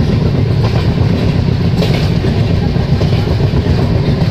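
Purushottam Express passenger train running at speed, heard from inside the coach through an open barred window: a loud, steady rumble of wheels on the track.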